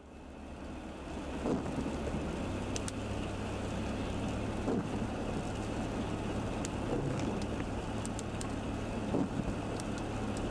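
Road noise inside a vehicle driving on a wet highway in rain: a steady low engine and tyre hum with raindrops ticking on the windshield and roof. It fades in over the first second or two.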